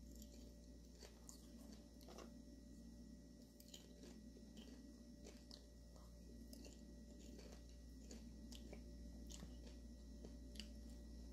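Faint crunching of popcorn being chewed, with irregular small crisp clicks.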